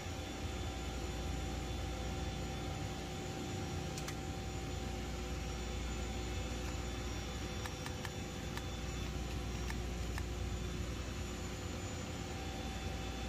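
Steady machine hum and hiss in a workshop, with a few faint steady tones and a couple of faint clicks.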